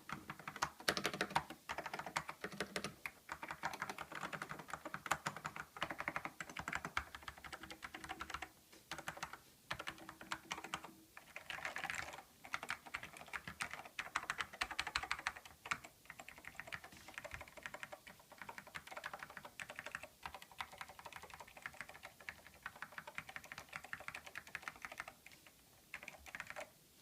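Fast, continuous typing on a Silicon Graphics keyboard with salmon Alps switches, a dense run of key clacks broken by a few short pauses.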